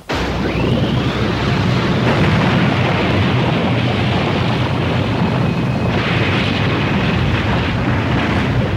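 Cartoon action sound effect: a loud rushing roar with a deep rumble that starts abruptly, with a brief rising whine about half a second in and a brighter hiss about six seconds in.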